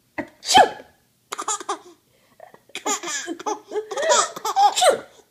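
A woman sneezes once, loudly, and a baby answers with laughter: a short laugh, then from about halfway a longer run of high, rising and falling laughs.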